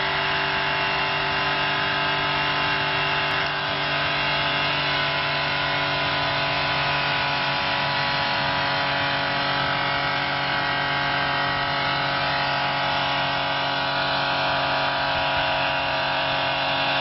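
Audi A6 sedan's engine revving at a steady, very high speed with no load, its pitch unchanging, because the accelerator is held down by a sleeping driver's foot. It is running near the redline, hard enough to risk ruining the engine.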